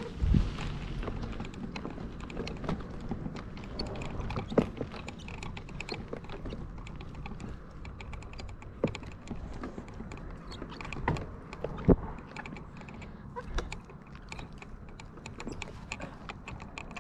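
Bicycle rolling over a rough dirt and gravel path, rattling with dense, irregular small clicks and ticks, with a few sharper knocks as it jolts over bumps; the loudest knock comes about twelve seconds in.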